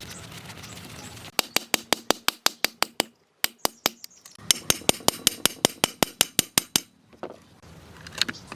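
Two quick runs of sharp clicks or taps, about ten a second, separated by a short pause.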